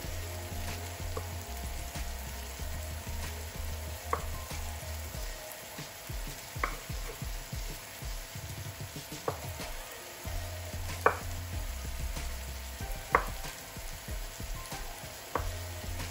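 A chef's knife slicing a salami sausage on a wooden chopping board, with about eight sharp taps of the blade against the board spaced a couple of seconds apart. Behind the taps, onions sizzle steadily as they fry in a pan.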